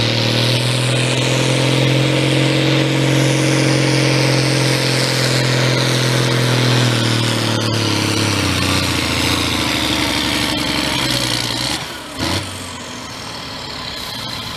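Modified pulling tractor's diesel engine running hard at high, steady revs under the load of the pulling sled. About halfway through, its pitch drops and the sound fades as it goes past.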